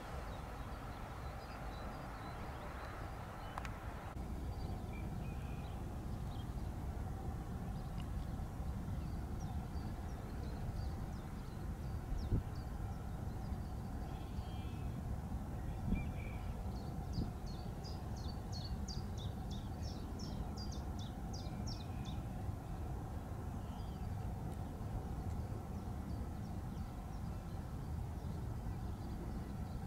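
Outdoor ambience with a steady low rumble and faint bird calls. Past the middle, one bird gives a series of high, evenly spaced notes, about three a second, for some five seconds.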